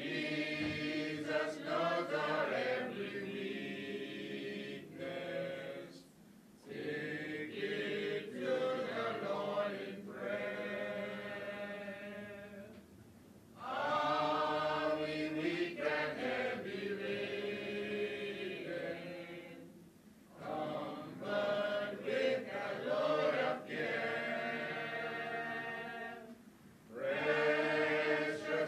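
A group of voices singing a slow hymn in long held lines, with a brief pause between lines about every six to seven seconds.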